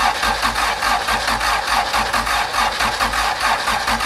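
Starter motor cranking a swapped-in Honda H22A four-cylinder VTEC engine, a steady rhythmic chugging that does not catch and stops abruptly after about five seconds. Earlier attempts had failed because of miswired connections and a weak battery.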